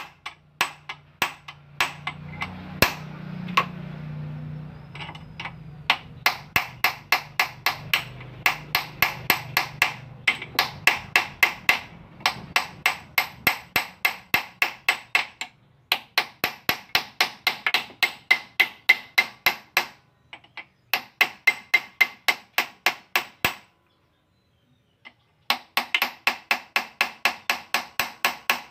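Rapid, even metal-on-metal tapping, about three to four sharp ringing strikes a second, in long runs broken by a few short pauses, on a car tie rod being serviced in a bench press.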